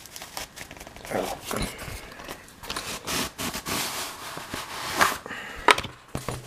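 Handling noise: irregular rustling and scraping with scattered sharp knocks, a couple of louder ones about five seconds in, as a fabric laptop sleeve is slid into place on a wooden desk.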